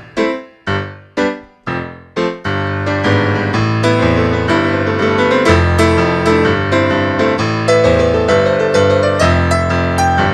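Piano music: a few separate struck chords, each dying away, then steady continuous playing from about two and a half seconds in.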